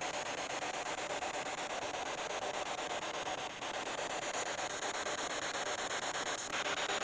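A spirit box sweeping through radio stations, giving a steady hiss of static that flickers quickly in level, with a brief dip about three and a half seconds in.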